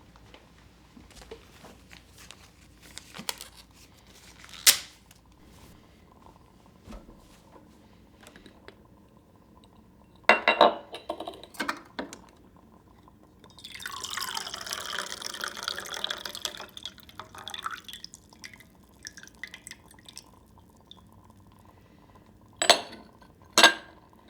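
Household handling sounds: a few sharp clinks and knocks of glass or dishware, and midway about three seconds of liquid being poured.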